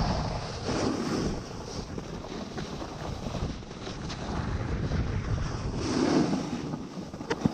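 Wind rushing over a GoPro Hero 6's microphone as a snowboard carves down a groomed piste. The board's edge scraping the snow swells louder with the turns, about a second in and again near the end.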